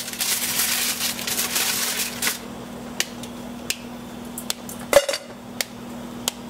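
Dark chocolate being snapped by hand and the pieces dropped into a stainless steel mixing bowl. A dense rustle for the first two seconds or so, then a string of sharp clicks and clinks, the loudest about five seconds in ringing briefly off the bowl.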